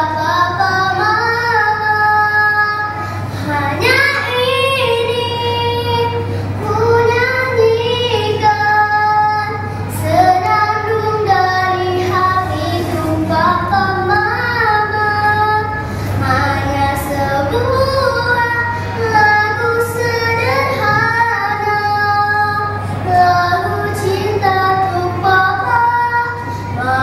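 A young girl singing solo, phrase after phrase, holding some notes long.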